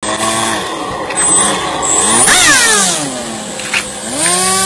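Homemade model aeroplane's propeller motor running. About halfway it revs up sharply, winds down over a second and a half, then revs up again near the end and holds a steady, higher pitch.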